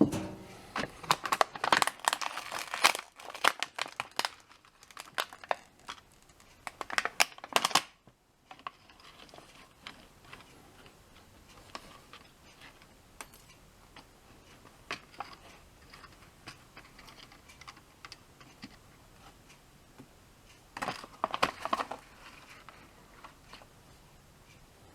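Small parts of a clock-mechanism kit being handled and fitted to a hubcap: quick runs of clicks, rattles and crinkling, busy for the first several seconds, then sparse faint clicks, and another short burst a little after twenty seconds in.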